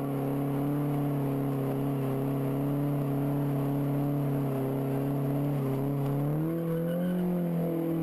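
Car engine held at steady high revs while its wheels spin in a burnout. The revs climb about six and a half seconds in.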